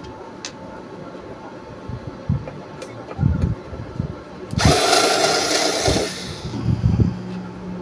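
Small cordless electric screwdriver running for about a second and a half, backing a screw out of the metal case of a portable power station that is being opened. A few short knocks of handling come before it.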